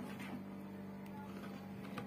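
Metal wire whisk beating yogurt thinned with water in a plastic bowl, faint and steady with light ticks of the wires, over a steady low hum.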